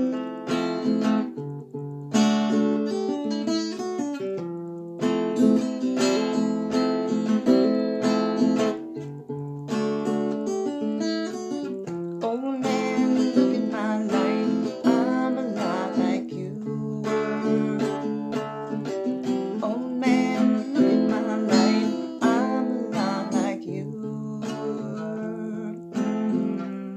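Four-string acoustic tenor guitar, a Craven Model 265, playing an instrumental passage of strummed chords and picked notes.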